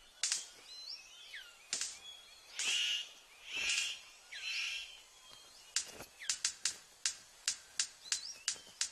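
Male superb bird of paradise displaying: a few whistled, falling call notes and three harsh, buzzy calls, then a fast run of sharp clicks, about three a second, from a little past halfway as he dances before the female.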